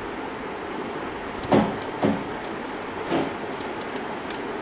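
Bench handling noise: a few knocks and short, light clicks, as from test-lead banana plugs and equipment being handled, over a steady hiss. The two strongest knocks come about a second and a half and two seconds in.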